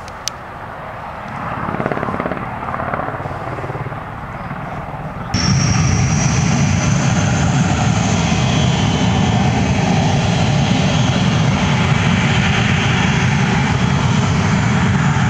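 A military attack helicopter's rotors and engines as it displays in the air, with a short click just after the start. About five seconds in, the sound cuts abruptly to a small military jet's engines running loud and steady with a high whine as it rolls along the runway.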